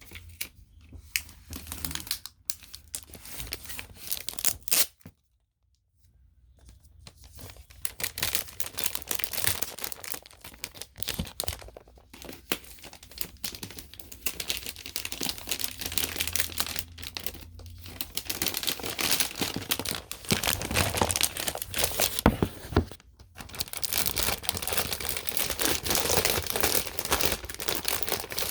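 Packaging wrap being pulled, crinkled and torn off a new laptop by hand: a long run of rustling and crackling, broken by a short silence about five seconds in.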